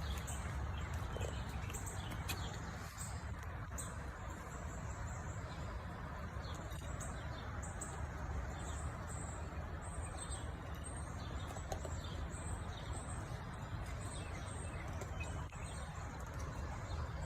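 Birds chirping: many short, high chirps scattered throughout, over a steady low background rumble.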